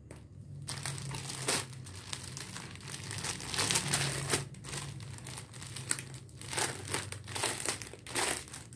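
Clear plastic packaging bags crinkling in irregular bursts as hands handle them and start to pull one open.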